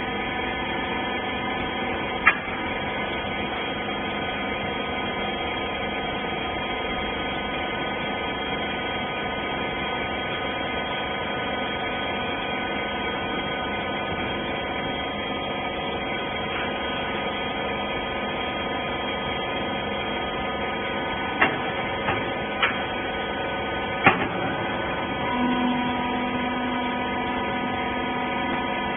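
Rag compression baler's hydraulic power unit running with a steady hum. A few sharp clicks come through, one about two seconds in and a cluster past twenty seconds, and a low steady tone joins near the end.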